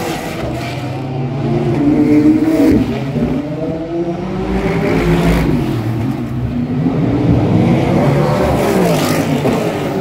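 IMSA sports racing cars passing one after another at speed, their engines revving loudly, with the pitch rising and falling as each car goes by.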